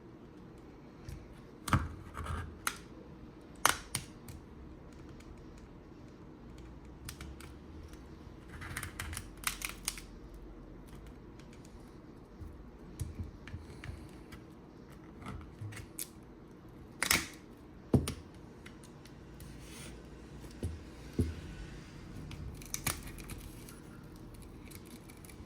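Scattered sharp clicks and scraping as the old screen of a Nokia G21 phone is pried off its frame with tools, the glass cracking off in flakes.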